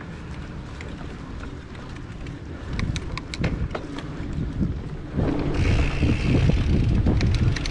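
Mountain bike riding a forest dirt trail: tyres rumbling on the ground and sharp rattling clicks from the bike over bumps, with wind buffeting the microphone. It gets louder about three seconds in and much louder about five seconds in.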